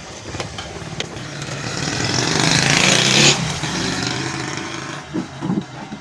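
A motor vehicle's engine passing by, growing louder to a peak about three seconds in and then fading.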